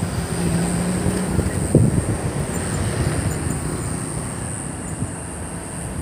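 Wind rumbling on the microphone with a low, steady engine hum that fades over the next few seconds, and a sharp knock a little under two seconds in. A faint, steady high whine runs underneath.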